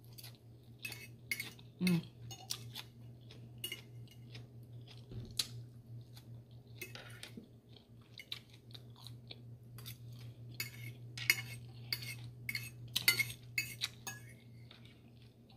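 Utensils clicking and scraping against a plate or takeout container during a meal, in short irregular clicks, over a steady low hum.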